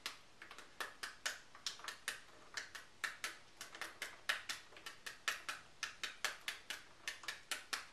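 Wooden pestle tapping the rind of a half pomegranate held cut side down, knocking the seeds loose into a bowl. A steady run of light, sharp knocks, about four a second.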